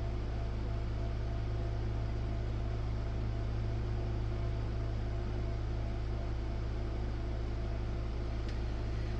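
Steady low hum with an even hiss over it, unchanging and without any distinct events.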